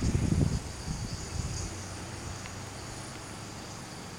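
Steady, high-pitched chorus of insects chirring in the surrounding vegetation. Wind buffets the microphone with low rumbles in the first half-second or so.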